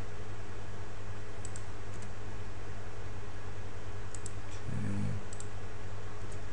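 Scattered clicks of a computer mouse and keyboard, several coming in quick pairs, over a steady low hum.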